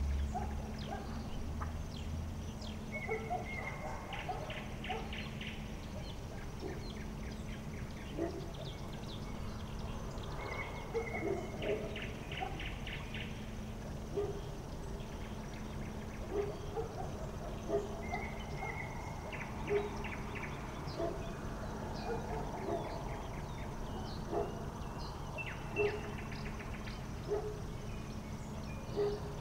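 Outdoor nature ambience: scattered short chirps and calls, and a rapid pulsed trill that repeats about every eight seconds, over a steady low hum.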